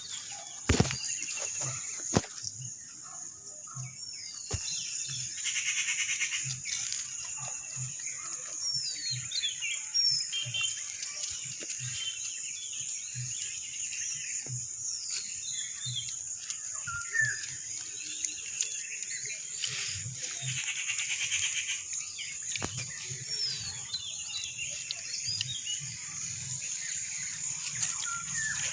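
Birds chirping over and over in short rising and falling calls, with a few rapid trills, over a steady high-pitched hiss. Soft low knocks come and go underneath.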